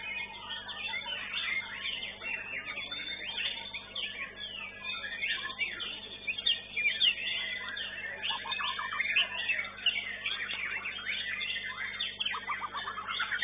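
White-rumped shama (murai batu) singing without pause: a dense run of varied whistled phrases, with bursts of rapid rattling trills about halfway through and near the end. A low steady hum runs underneath, and the sound is thin, as through a CCTV microphone.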